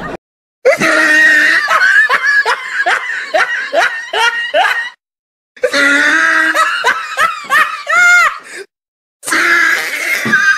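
Laughter sound effect: a loud laugh in rapid pulsing 'ha-ha' bursts. It plays in three stretches, each cut off abruptly by a brief dead silence.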